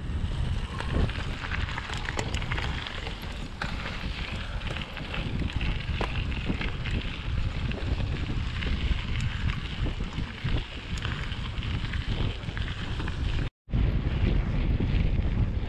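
Wind buffeting the microphone of a mountain bike's action camera while riding, over tyres rolling on gravel and many small clicks and rattles from the bike. The sound breaks off for an instant near the end, then goes on.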